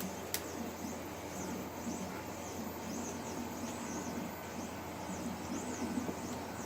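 Quiet background with birds chirping over and over in short high chirps, and one sharp click shortly after the start. The plastic plate being flexed makes no creak or crack.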